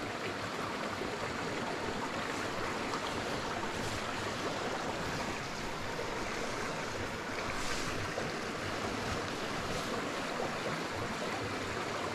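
Steady rush of a small creek's fast water running over rocks.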